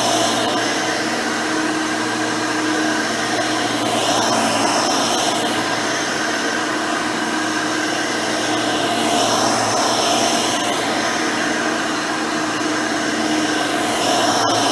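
Hoover Elite 600 upright vacuum running on a swapped-in modern 7-amp motor with a 20-blade fan, the brush roll spinning as it cleans. The steady motor hum swells and eases about every five seconds.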